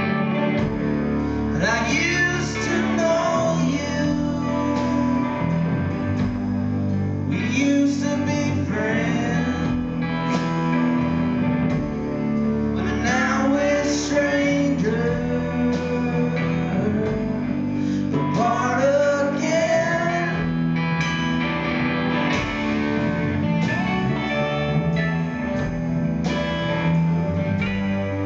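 Live rock band playing: electric guitar, drums and keyboard, with a male voice singing phrases every few seconds over the music.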